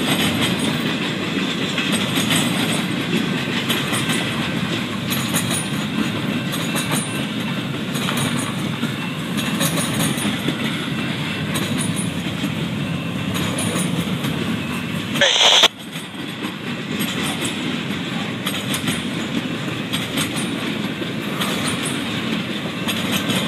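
Double-stack intermodal container cars of a freight train rolling past at speed: a steady rumble of steel wheels on rail with repeated clacks. A brief loud crackle about two-thirds of the way through.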